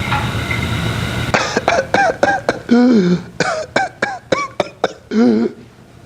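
Whooping cough (pertussis) demonstration played back: a run of rapid short coughs starting about a second in, a drawn-in pitched whoop, then a second run of coughs ending in another whoop. The whoop is the sudden in-breath after the coughs have emptied the lungs, the characteristic sign of pertussis.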